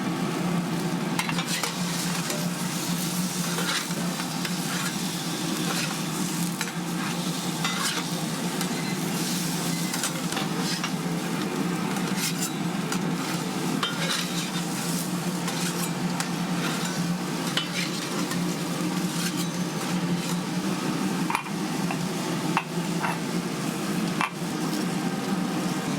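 Food sizzling as it fries on a hot griddle, with a steady hiss and frequent sharp clicks and scrapes of metal utensils, over a steady low hum.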